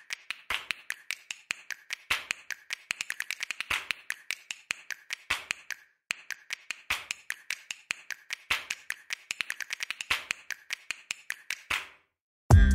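A long run of quick, sharp clicks in uneven clusters that speed up and then pause, stopping shortly before the end, when loud music with a heavy beat starts.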